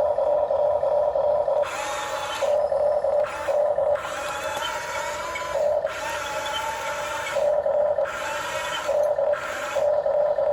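Remote-control excavator's electric motors and gears whirring and grinding in short runs of one to two seconds, starting and stopping as the controls are worked, over a steady hum.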